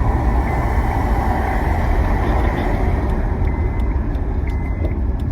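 Steady road and wind noise inside a moving car's cabin: an even, low rumble with no breaks.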